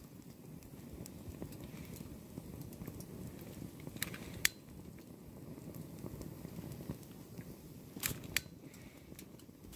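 Flames burning a rain jacket: a steady low rumble with a few sharp crackles, two close together near the middle and two more near the end.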